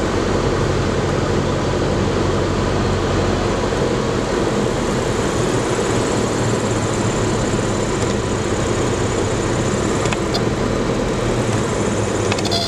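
Engine and propeller of a 1977 Grumman Cheetah, a four-cylinder Lycoming, droning steadily as heard inside the cabin on final approach.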